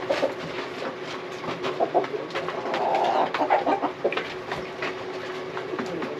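Domestic chickens clucking in a coop, in short scattered calls, mixed with light clicks and scratches, over a faint steady hum.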